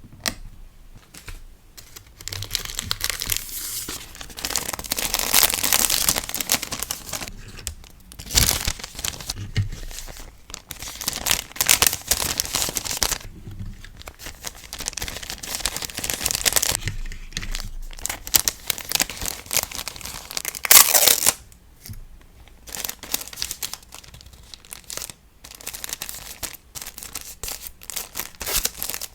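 Crinkling and rustling of packing materials being handled, in stretches of a few seconds with short pauses, with one brief louder crackle about two-thirds of the way through.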